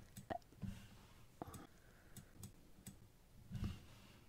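Faint scattered light clicks over quiet room noise, with a few soft low thumps, the loudest near the end.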